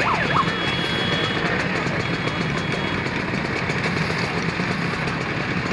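Many Vespa scooters idling together in a crowd, a steady mixed engine drone with no single engine standing out. A quick rising and falling whistle-like tone sounds briefly at the very start.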